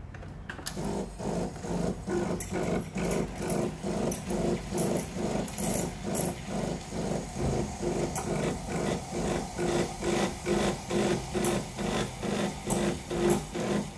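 Home espresso machine's steam wand running in a stainless steel pitcher: a hiss with the pump chugging in even pulses about three to four times a second, starting just after the steam knob is opened.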